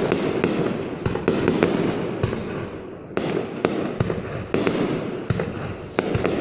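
Aerial fireworks going off in quick succession: sharp bangs about every half second over a continuous rumbling crackle, with a brief lull about three seconds in.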